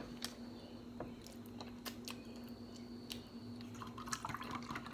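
Soft chewing and biting of food, with scattered small clicks and crunches.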